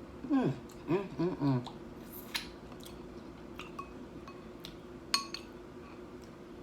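A few short hummed vocal sounds while eating, then three or four light clinks of a dish, utensil or glass, one with a short ring.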